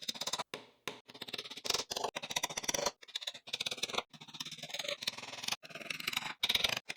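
Quick runs of light hammer taps driving small nails into wooden pieces, many taps a second, broken by short pauses.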